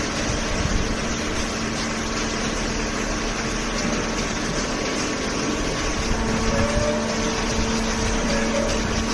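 Hydraulic waste paper baler running: a steady hum and drone from its hydraulic pump and motor, with a faint higher tone joining about six seconds in.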